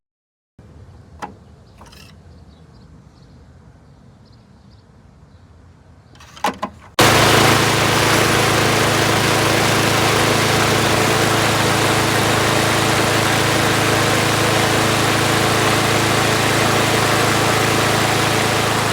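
A few light clicks and knocks, then about seven seconds in a lawn mower's small engine comes in loud, running steadily at speed.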